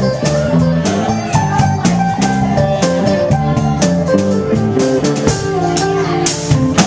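Live band playing an instrumental passage: electric guitar over a drum kit keeping a steady beat of drum and cymbal hits.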